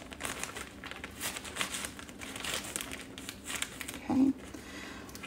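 Plastic zip-top freezer bag crinkling and rustling as brown sugar is scooped out of it with a tablespoon, with a brief low hum-like sound about four seconds in.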